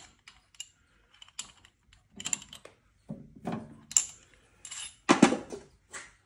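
Irregular clicks and light metal taps of a hex key working the set screws on the lathe belt tensioner's collars as they are tightened hard, with a louder knock about five seconds in.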